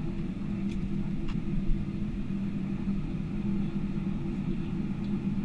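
Steady cabin noise of a Boeing 777-300ER taxiing, its GE90 engines at idle heard through the cabin as a low hum with a constant drone. A couple of faint ticks about a second in.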